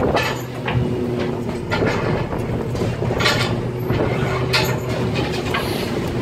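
Fishing boat's engine running steadily, with a few scattered knocks and clatters on deck.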